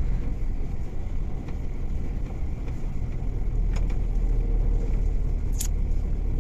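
Steady low drone of a DAF XF95 truck's diesel engine and tyres, heard inside the cab while driving on a snow-covered road. Two short clicks come in the second half, the second one louder.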